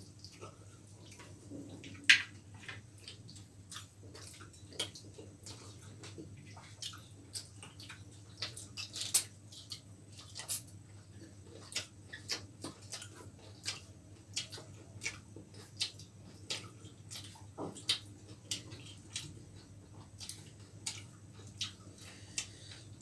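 Wet chewing and lip-smacking from people eating roti and chilli chicken by hand: soft, irregular mouth clicks about one or two a second, over a low steady hum.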